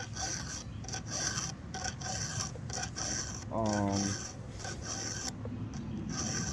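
A hand file rasping across the cutter teeth of a Stihl 362 chainsaw chain in repeated strokes as the chain is sharpened by hand. A short hummed vocal sound comes about three and a half seconds in.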